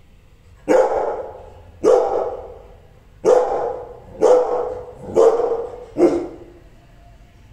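Rottweiler barking six times, about one bark a second, each bark trailing off in the room.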